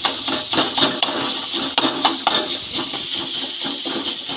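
Metal spatula chopping and scraping cooked shredded cabbage against a metal kadai: quick repeated taps and scrapes, a few a second, as the cabbage is cut finer in the pan.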